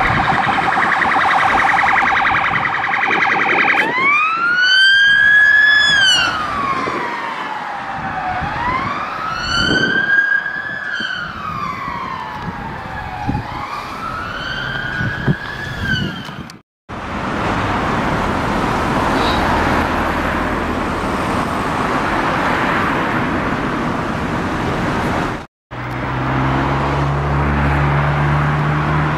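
Police car siren: a fast warble for a few seconds, then three slow rising-and-falling wails. After a cut comes a stretch of steady outdoor noise, and after a second cut a low, steady engine hum.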